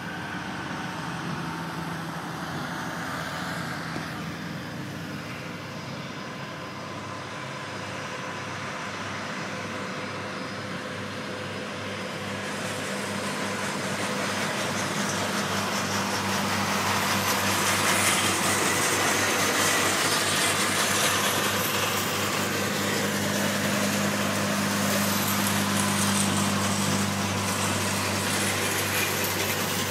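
Engine noise of airport traffic, a baggage tractor and jet aircraft. A steady engine hum with a broad rush over it grows louder from about twelve seconds in.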